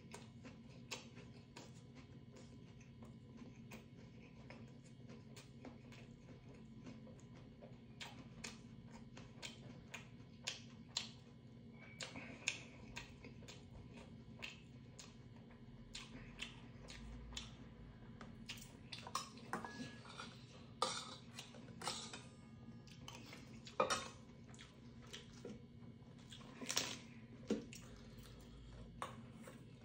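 Eating sounds: scattered sharp clicks and clinks of chopsticks and a spoon against stainless steel bowls and a pot, coming more often and louder in the second half, over a steady low hum.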